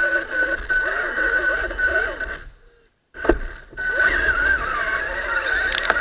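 Electric RC truck motor and gears whining, the pitch wavering with the throttle. Near the middle the sound drops out briefly, then comes back with a sharp knock.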